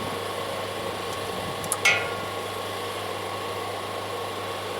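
Two short clinks of a hand tool or small engine part about two seconds in, during work on the chipper's carburetor, over a steady background hum.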